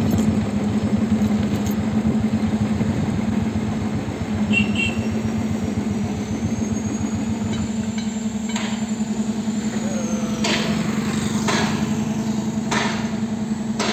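A motor vehicle's engine running at a steady pace while driving, a constant pulsing drone. A few short rushes of noise come in the last few seconds.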